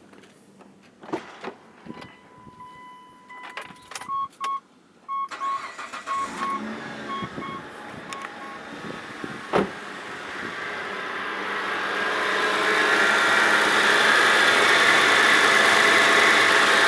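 Clicks and a run of short beeps, then the Mitsubishi Pajero's engine starts and runs. Its sound grows louder over a few seconds and then holds steady, with no squeak now that the idler pulley has been replaced.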